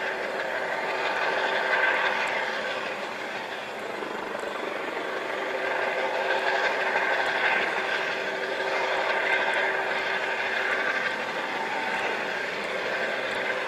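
Storm noise of wind and rain, a steady rushing that swells and eases every few seconds, with a faint steady hum underneath.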